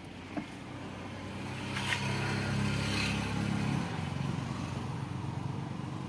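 A short click, then a Tata Tiago front power window motor running for about three seconds as the glass travels, stopping near the four-second mark: the front window working again on its cleaned, previously water-damaged and rusted switch.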